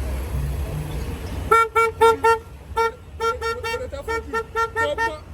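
A low rumble, then from about a second and a half in a car horn tooted over and over in short, quick blasts of one steady pitch.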